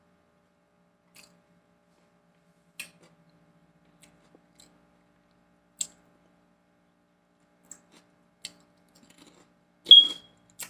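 Wet mouth clicks and lip smacks of a person chewing food close to the microphone: a handful of scattered clicks, then one louder smack with a brief squeak near the end.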